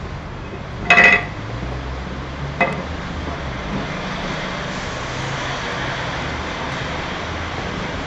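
A sharp metallic clank with a brief ring about a second in, as a cast copper ingot is knocked out of its steel ingot mould onto the board, and a lighter clink a second and a half later. A steady low rumble and hiss runs underneath.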